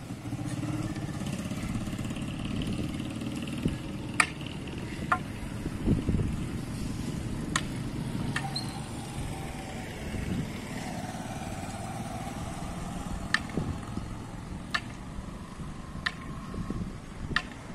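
A small motorcycle engine running as it passes, its hum clearest in the first few seconds, over steady street noise. Scattered sharp clicks sound throughout.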